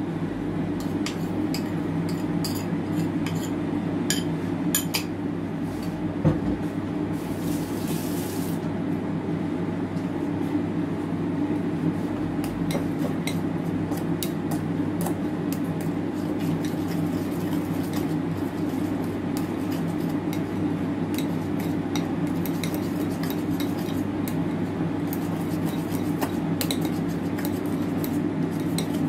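A utensil clicking and scraping against a mixing bowl as mashed banana is stirred into cake batter. There are many light irregular clicks over a steady low hum, and a brief hiss about seven seconds in.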